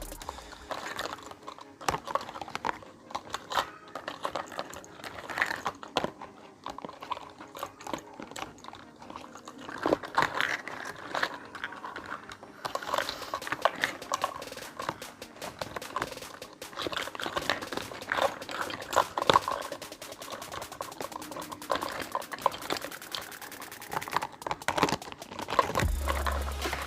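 Irregular small clicks, taps and light rattles of miniature toy kitchen pieces being handled and set down, with no steady rhythm.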